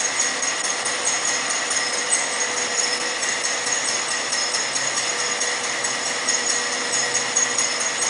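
Metal coil slitting line running steadily as the slit strips feed through. A continuous mechanical noise with a fine, rapid high rattle and a steady hum underneath.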